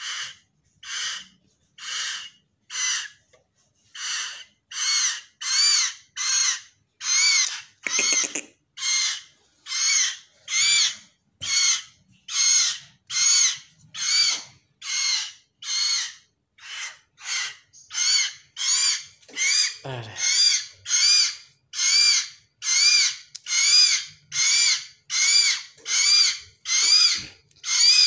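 Hill myna chick giving short begging calls over and over, about one and a half a second, louder after the first few seconds as it asks to be fed.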